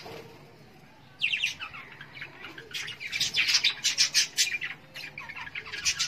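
Budgerigars chirping and chattering, a quick run of high chirps beginning about a second in after a short lull.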